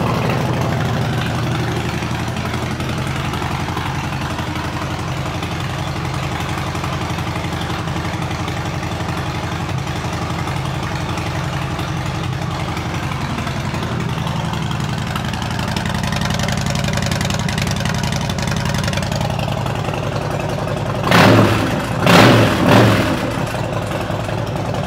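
Harley-Davidson Street Bob's air-cooled V-twin idling steadily through Vance & Hines Short Shots exhaust pipes, with a few quick throttle blips near the end.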